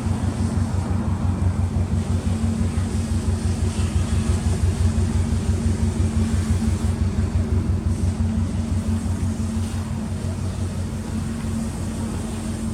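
Subaru Impreza GDB's turbocharged flat-four idling steadily through an aftermarket Fujitsubo exhaust, a low, uneven rumble with no revving.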